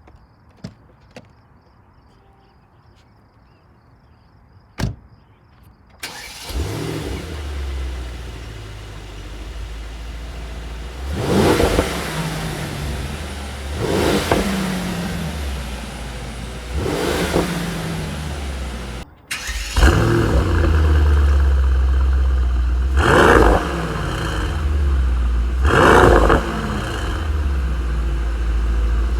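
Mercedes-AMG GT 63 twin-turbo 4.0-litre V8 exhaust: after a few clicks, the engine starts about six seconds in, settles to idle and is revved three times. After an abrupt cut, a V8 idles with a heavier low rumble and is revved twice more.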